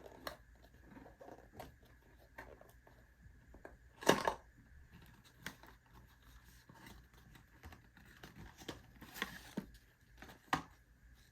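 Packaging being unwrapped by hand: intermittent crinkling and tearing with scattered small clicks, the loudest rustle about four seconds in.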